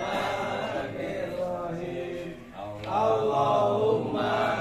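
A man's voice chanting an Islamic prayer in long, drawn-out melodic phrases, with a short break about halfway through.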